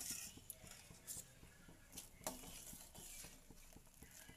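Faint sound of a spoon stirring sago pearls into hot milk in a pot, with a few light clicks of the spoon against the pot.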